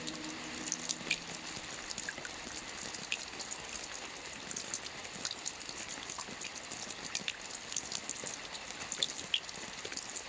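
Steady rain falling, with many individual drops ticking sharply against the steady hiss.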